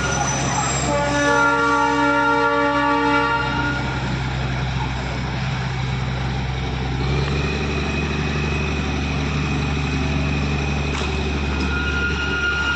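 Darjeeling Himalayan Railway toy train running with a steady low rumble; about a second in it toots once, for about three seconds.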